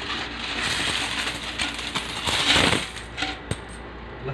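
Saved money being tipped out of a savings box: a dense clatter of many small strokes, loudest about two and a half seconds in, then a single sharp click.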